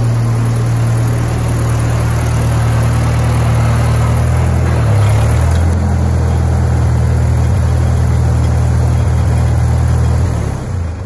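Vintage Ford N-series farm tractor's four-cylinder engine running as it pulls up and then idles, with a shift in pitch about halfway through. The engine is shut off near the end.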